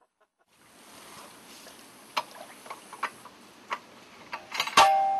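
Steel hardware being handled and fitted: a few sharp, irregular metallic clicks and knocks, then a louder clang near the end that rings briefly.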